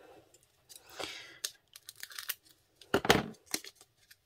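A small sealed packet's wrapper being cut with scissors and torn open, crinkling, with a rip about a second in and a louder one about three seconds in.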